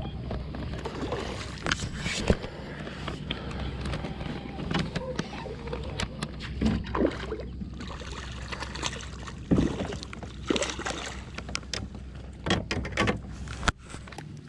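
A hooked striped bass splashing and thrashing at the water's surface beside a kayak as it is brought to the net, with irregular sharp splashes and knocks of the landing net and gear.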